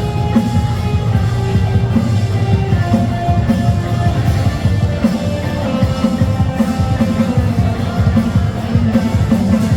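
Background music with a steady beat: an instrumental stretch of a Chinese-language pop song, between its sung lines.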